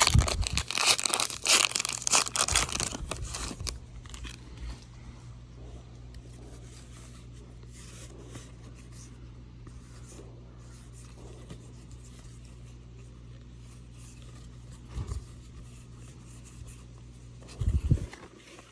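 A trading card pack's wrapper being torn open and crinkled for the first three or four seconds, then quiet handling with a couple of soft knocks near the end.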